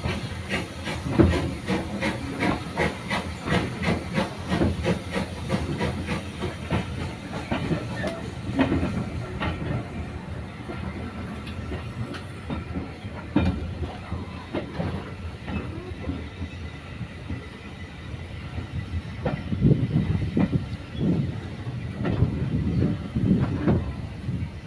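Passenger coach of a steam-hauled heritage train rolling along jointed track: a steady rushing hiss with the wheels clicking and clattering over the rails. The clicking is busiest at first, eases off in the middle and picks up again near the end as the coach nears pointwork.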